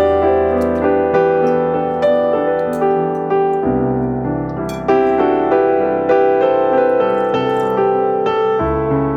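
Background piano music: a gentle melody over held chords, each struck note fading away before the next.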